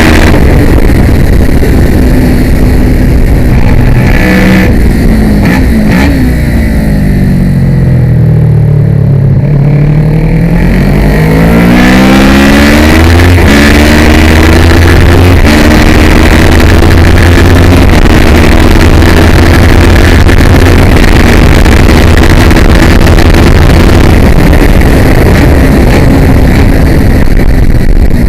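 Kawasaki ER6 (ER650) parallel-twin race engine heard from on board the bike at full race pace. The engine note falls over a few seconds as the bike slows for a corner, bottoms out about 9 seconds in, then rises again under hard acceleration and holds high revs to the end.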